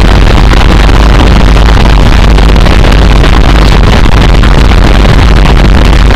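A constant wall of heavily distorted electronic noise music, clipped at full level with a heavy low end and no break or change.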